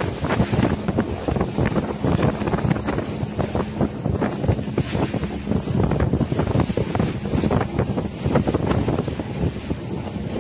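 Wind buffeting the microphone on a motorboat running fast across open sea, over the engine's steady low hum and the rush of water along the hull.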